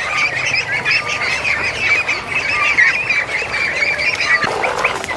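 A large flock of poultry calling all at once: dense, overlapping short squawks, with lower, fuller calls taking over about four and a half seconds in.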